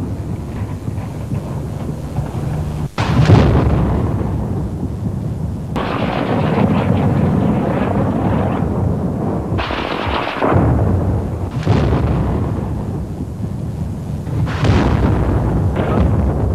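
Shelling: about six heavy blasts of exploding shells, each followed by a long rolling rumble, the loudest about three seconds in.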